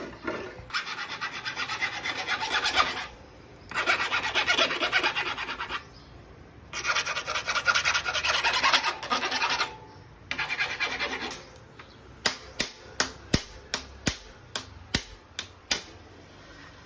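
Rasping, scraping work noise in four long stretches of a couple of seconds each, then a run of about a dozen sharp clicks.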